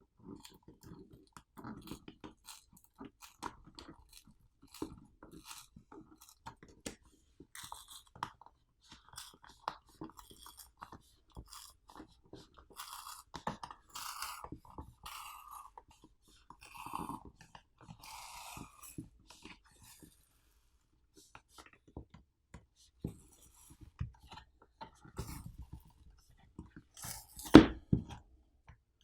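Hand disassembly of a power bank: small plastic and metal parts being handled, with scattered clicks, taps and short scrapes. A single louder knock comes near the end.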